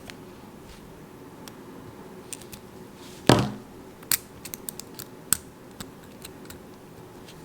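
Hand tools working on a CAT6 ethernet cable: scattered small clicks and snips, with one louder snap a little over three seconds in and a few sharp ticks after it.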